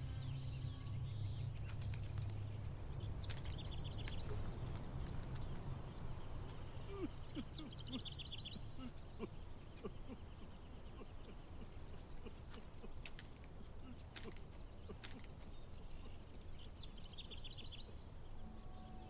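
Outdoor park ambience: a steady low rumble, with a songbird singing a short, quick, falling trill three times, about 3 seconds in, 8 seconds in and near the end.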